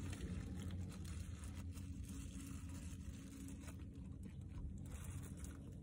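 Clear plastic food bag rustling and crinkling as a hand digs into it and food is pulled out, over a faint low steady hum.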